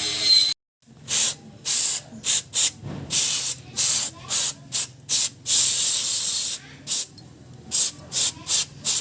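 A quick series of short hissing bursts of pressurised spray or air, about fifteen in all with one longer burst near the middle, likely aimed at the oil-soaked distributor parts being cleaned.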